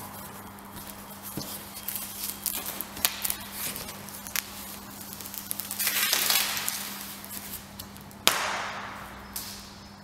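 Plastic sheeting crinkling and crackling as it is moved against a body, with scattered sharp clicks. The rustle swells about six seconds in, and a sudden loud crackle comes near the end and fades away, over a steady low hum.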